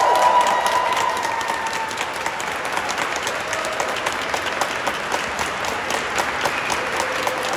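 Congregation applauding steadily in a large stone church, with voices cheering over the clapping at the start and fading out after about two seconds.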